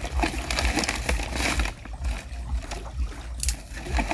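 Plastic bags and bait packets rustling and crinkling as they are handled, in irregular crackles, over a steady low rumble.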